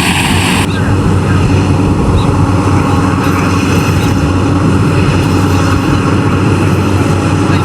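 Yanmar AW70VW combine harvester's diesel engine and threshing machinery running steadily under load.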